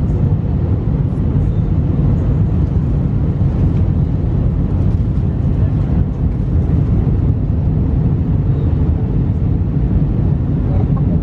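Steady cabin noise inside an Airbus A319 on descent: a low, even rumble of jet engines and airflow over the fuselage, holding level throughout.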